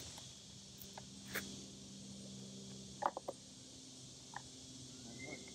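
Faint steady high hiss and low hum, with a few soft clicks and rustles as fingers stir damp coconut coir and worms in a small plastic cup, a quick cluster of them about three seconds in.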